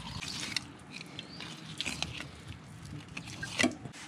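Knife cutting through raw longfin tuna flesh along the bones as the belly loin is freed: soft wet slicing with scattered small clicks and ticks, a few louder ones near the end.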